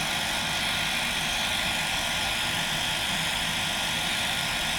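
Hair dryer blowing steadily on a long-haired cat's coat, a constant even whoosh with a low motor hum underneath.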